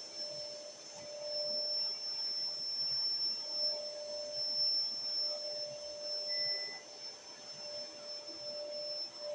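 Canister vacuum cleaner running steadily while its floor nozzle is worked over a carpet: a steady high whine and a lower hum over the rush of air.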